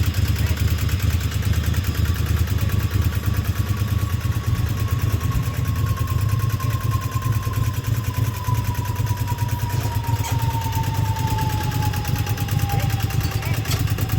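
Riding lawnmower's small engine running steadily.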